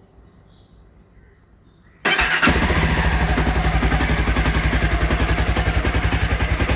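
A motorcycle engine is started about two seconds in: a brief turn of the starter, then it catches and settles into a steady idle with a fast, even beat. This is the donor bike, run while jumper-cabled to a motorcycle with a flat battery.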